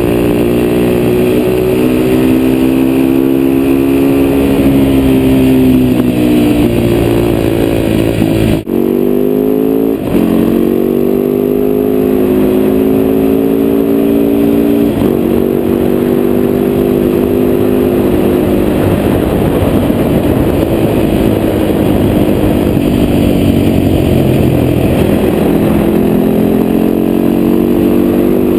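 Husaberg FS570 supermoto's single-cylinder four-stroke engine under way, revs climbing and falling through gear changes and off-throttle stretches. A brief break with a click about a third of the way in.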